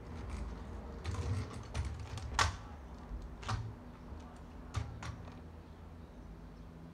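Kick scooter clattering on asphalt: a series of sharp, uneven clacks, the loudest about two and a half seconds in, over a low rumble in the first half.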